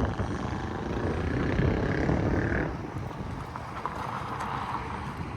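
Vehicle moving slowly: steady engine and road noise, louder for the first two and a half seconds, then easing off.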